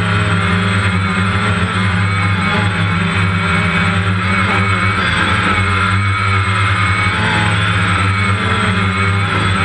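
DJI Phantom quadcopter's motors and propellers humming steadily, heard from the camera it carries, the higher tones wavering slightly as it manoeuvres.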